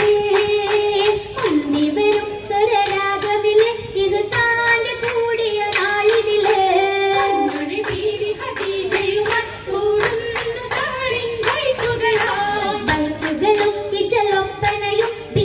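Singing of an Oppana song, the melody carried without a break, with the performers' hand-clapping in a steady rhythm throughout.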